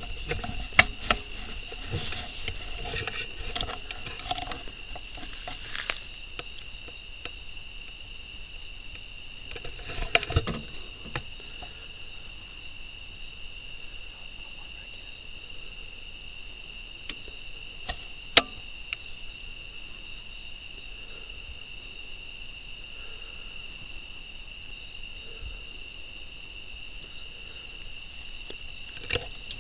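Crickets chirping in a steady night chorus, heard as a high continuous trill. A few sharp clicks and knocks cut through it, loudest about one, ten and eighteen seconds in, with some rustling early on and around ten seconds.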